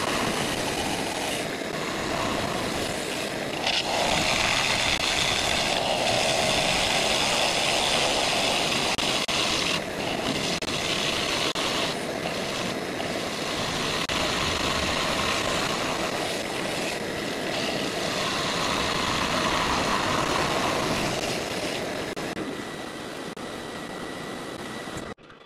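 Bowl gouge cutting the inside of a spinning ash bowl on a wood lathe: a continuous hissing rasp of shavings being cut, swelling and easing as the tool is swept through the wood. The cutting dies away about three seconds before the end.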